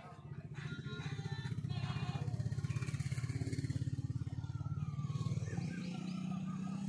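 An engine idling with a fast, even pulse, its pitch shifting up slightly near the end.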